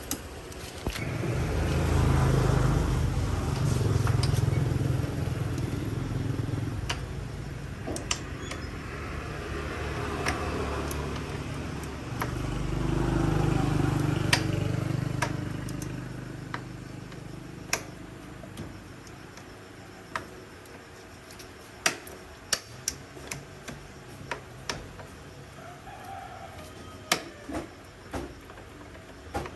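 Low engine rumble swelling and fading away twice, then a string of sharp clicks and taps.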